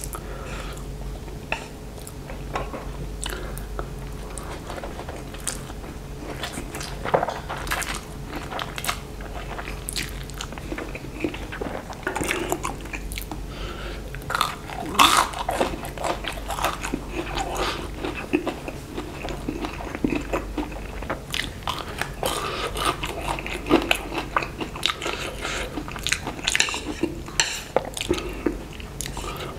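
Close-miked chewing and biting of spicy fried instant noodles, with mouth smacks throughout. About halfway through comes a louder crunchy bite into a breaded fried stick.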